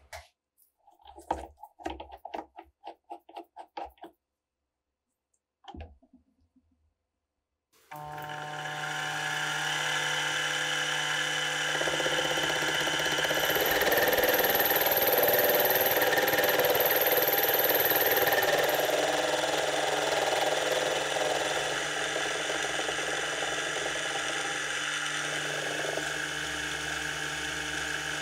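Light clicks and taps, then a benchtop milling spindle starts and runs steadily while its carbide burr cuts into a rusty steel part, a dense grinding noise with a steady hum. The cutting gets loudest with a high whine around the middle, then eases.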